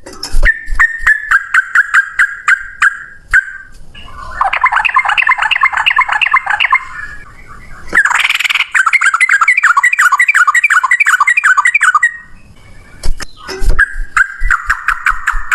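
Yellow-vented bulbuls (trucukan) singing in long runs of fast, chattering notes, in the rapid fighting song used to provoke other birds. There is a harsh, scratchy burst about eight seconds in, and sharp clicks come through among the notes.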